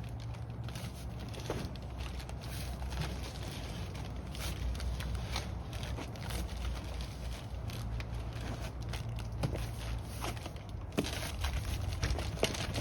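Handling noise of a heavy boxed floor jack being struggled off a pickup bed: scraping and crinkling with scattered knocks, more of them near the end, over a steady low rumble.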